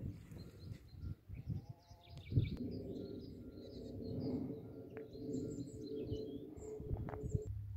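Small birds chirping and twittering. A steady humming drone with several tones starts about two and a half seconds in and stops shortly before the end.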